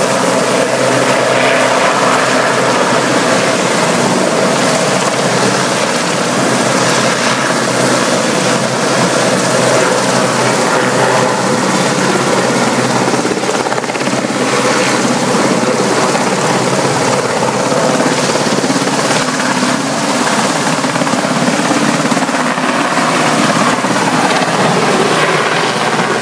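Large military helicopter hovering low and coming down to land: loud, steady rotor and engine noise.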